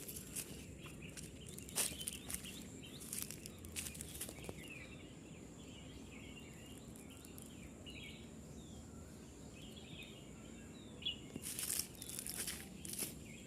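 Crunching, crackling steps or rustles in dry leaf litter, clustered in the first few seconds and again near the end, with faint chirping in the quieter middle and a steady thin high tone throughout.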